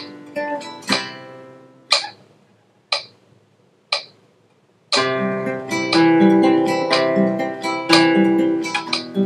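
Nylon-string classical guitar played fingerstyle. A few plucked notes open, then three single notes about a second apart, each left to ring out. About five seconds in, a fuller passage of quick arpeggiated notes begins.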